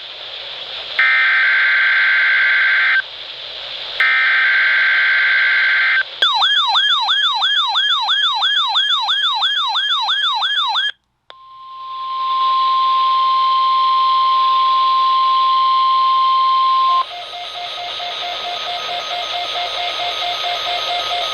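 NOAA Weather Radio Emergency Alert System weekly test tones: two buzzy bursts of SAME digital header data, then a rapidly warbling alert tone for about five seconds. After a brief dropout comes the steady 1050 Hz weather radio warning alarm tone for about six seconds, then radio hiss with faint pulsing tones.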